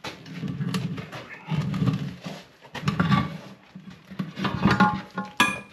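A skid steer tire being worked off its steel rim: repeated heavy straining and scraping of rubber on metal, with scattered clicks. Near the end comes a sharp metal clank that rings.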